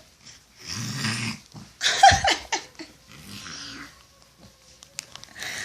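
A one-year-old boy imitating his father's snoring: a long breathy, buzzing snore about half a second in, a shorter one around two seconds, and a fainter breathy one near the middle.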